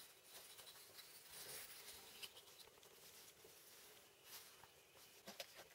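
Near silence with faint handling noise: light rustling, scraping and a few soft taps as hands pick up and handle a small fibreboard square and plastic relays over a cutting mat, the clearest taps about four seconds in and again near the end.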